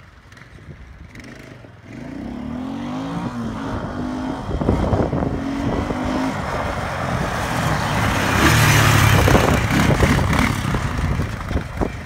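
Kawasaki Bayou KLF400 ATV's single-cylinder four-stroke engine revving up and down under load as the quad is ridden out of a deep mud rut. It is faint at first and grows louder from about two seconds in, with scattered thumps, loudest a little past the middle.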